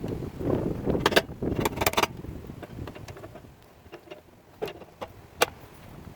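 Metal hand tool clicking and scraping against the water heater's drain fitting as the broken drain plug is pried out: a cluster of sharp clicks in the first couple of seconds and two more near the end.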